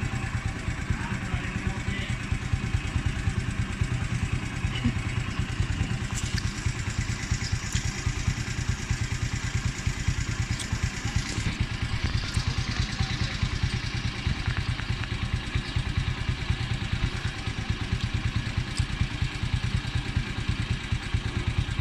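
Motorcycle engine idling steadily, an even, rapid beat at an unchanging level.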